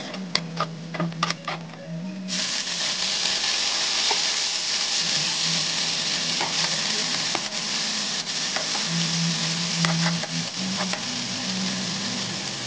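Metal spatula scraping and clicking against a wok as garlic and onion fry, then a loud sizzle starts suddenly about two seconds in as chopped tomatoes hit the hot oil, with occasional spatula scrapes over it.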